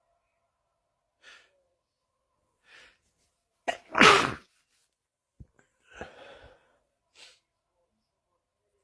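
A man sneezing once, loud and sudden, about four seconds in, after two short intakes of breath. Softer breathy sounds follow about two seconds later.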